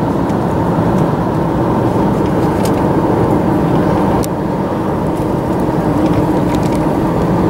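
Steady road and engine noise heard from inside a moving car's cabin at cruising speed, with a brief slight dip in level about four seconds in.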